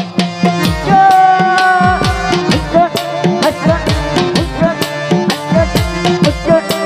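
Instrumental interlude of a Bengali jari folk band. Hand drums play a fast rhythm, with deep strokes that slide down in pitch, under held melody notes.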